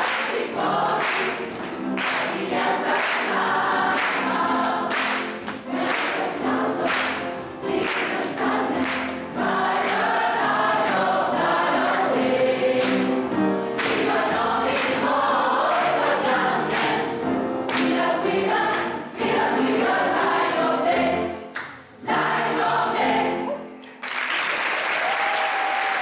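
Gospel choir singing with the singers clapping on the beat. The song ends about 24 seconds in, and audience applause follows.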